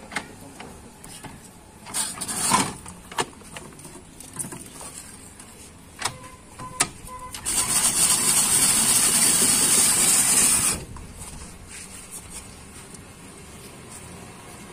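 Hand-cranked ice shaver grinding a block of ice for about three seconds, starting about seven and a half seconds in, as a steady loud scraping. Before it come scattered knocks and clinks, the loudest about two seconds in.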